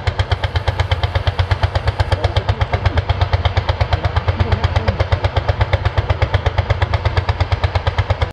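Lanz Bulldog tractor's single-cylinder hot-bulb two-stroke engine pulling a plough, beating out a fast, even thump of firing strokes.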